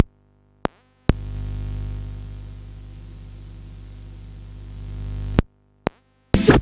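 Music from the Panasonic RQ-CR18V radio/cassette player cuts off, then after a click comes about four seconds of steady hiss with a low hum, ending in a click and a second click before the music starts again near the end.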